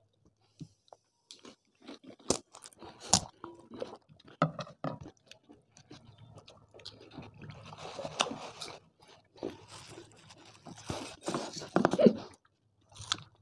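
Crisp, hollow pani puri shells cracking and crunching as fingers break holes in them, in scattered sharp crackles that bunch together about eight seconds in. Chewing and biting sounds follow near the end.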